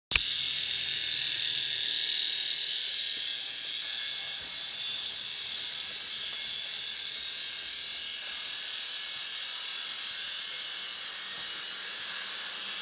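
Electric motor of a 00 gauge model locomotive, Caledonian Railway No. 123, whining steadily as it runs along the track with its inspection saloon. The whine is a little louder in the first few seconds and eases off as the train moves away.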